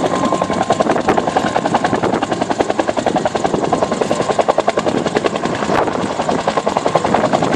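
Bell UH-1 'Huey' helicopter's two-bladed main rotor beating in a rapid, steady whop-whop of about ten blade beats a second.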